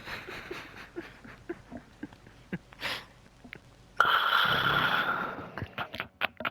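A sleeping man snoring: a faint breath near three seconds in, then one loud snore about four seconds in lasting about a second and a half, with small clicks around it.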